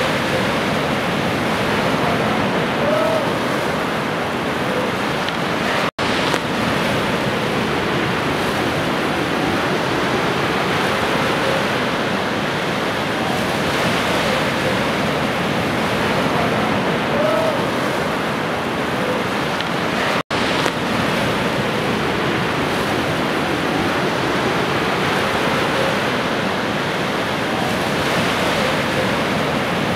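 Steady rushing noise with no music, broken by two momentary dropouts: about six seconds in and about twenty seconds in.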